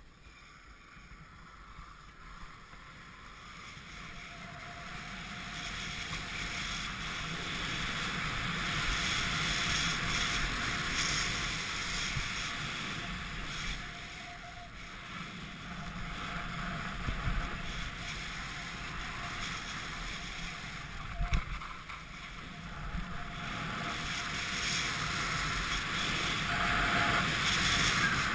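Praxis GPO skis hissing over snow on a downhill run, with wind rushing over the microphone, growing louder as speed builds over the first several seconds and swelling again near the end. A couple of dull thumps about two-thirds of the way through.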